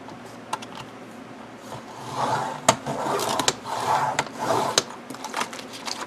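Fiskars paper trimmer cutting a thin plastic cutting-mat sheet: a few sharp clicks, then several scraping strokes as the blade slides along the rail through the plastic, from about two seconds in, with louder clicks among them.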